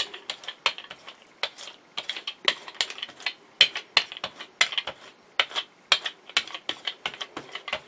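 Hand paint brayer rolling acrylic paint back and forth across a Gelli gel printing plate: a fast, irregular run of sharp clicks and ticks, several a second.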